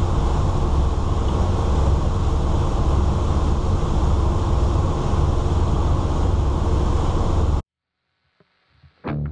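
Engines of a 2000 Sea Ray 34-foot cruiser running steadily under way, a loud, even drone with a rush of wind and water, heard from the helm under the hardtop. It cuts off abruptly a little under two seconds before the end, leaving near silence, and guitar music begins right at the end.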